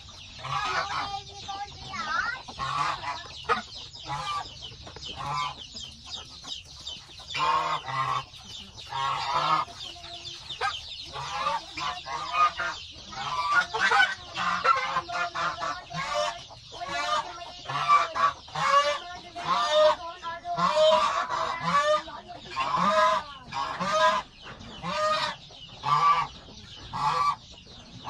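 Domestic white geese honking over and over, many short loud calls in quick succession.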